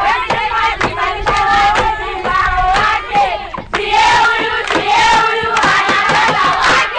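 A group of people singing and clapping their hands, with sharp claps over several voices.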